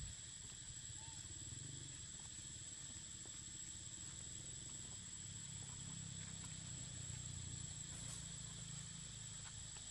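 Faint forest ambience: a steady, high-pitched insect drone over a low rumble.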